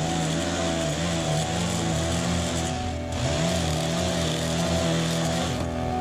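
ATOM 561 petrol lawn edger running at high revs while its blade cuts along the kerb edge, with a hiss over the engine note. The revs waver and dip briefly about halfway through and again near the end.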